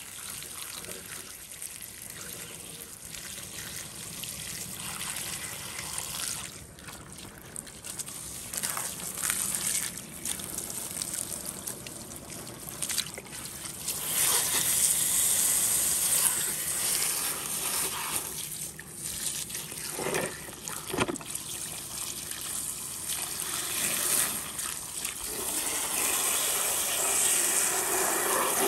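A jet of water from a hose spraying onto a mud-covered plastic toy truck and the paving slab under it, a steady splashing hiss that gets louder about halfway through.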